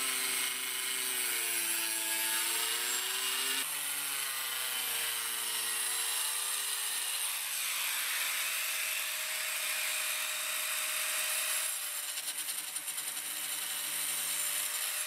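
Angle grinder with a stone-cutting disc cutting through cement-bonded particle board, a steady hiss of cutting over the motor's hum, whose pitch sags and recovers as the disc bites.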